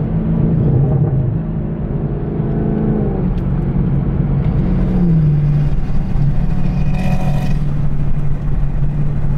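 Ford Mustang's engine running after a rev, its note falling back in two steps within the first five seconds or so, then holding at a steady idle.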